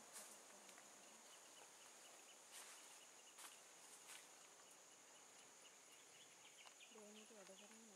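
Near silence: faint forest ambience with a steady high-pitched insect drone, a few faint clicks, and a faint voice coming in near the end.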